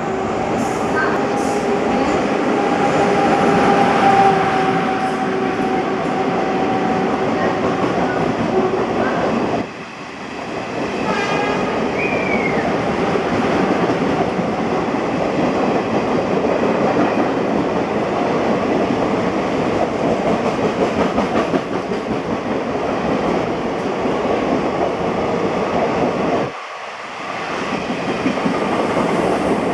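An Indian Railways express train passes through the station at speed, hauled by an electric locomotive: a loud, dense rumble with wheel clatter from the coaches. A steady held tone sounds over the first nine seconds as the locomotive comes in, and the rumble drops out briefly twice.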